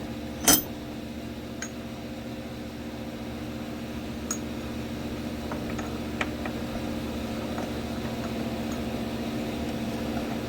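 Metal-on-metal work with a socket and bench vise, pressing a new bearing into an idler pulley. There is one sharp clink about half a second in and a few faint ticks later, over a steady hum.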